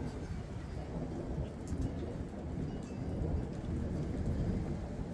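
Thunder rumbling over steady rain, the rumble swelling about three seconds in.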